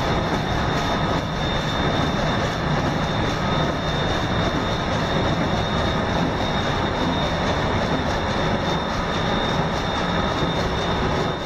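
Steady, loud running noise of a large marine diesel engine in an engine room, with a thin high whine held through it, fading out at the very end.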